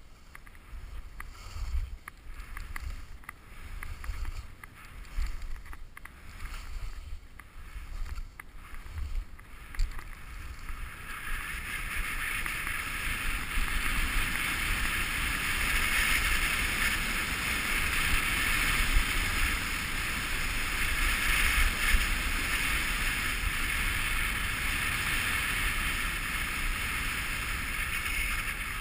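Skis scraping and chattering over chopped-up snow with irregular low thumps, then, about ten seconds in, a steady, louder hiss of skis running fast on a smooth groomed piste with wind rushing past.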